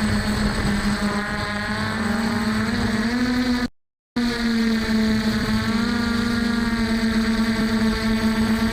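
F450 quadcopter's four brushless motors and stock propellers running in flight, a steady buzzing whine whose pitch wavers slightly with throttle. The audio drops out completely for about half a second near the middle.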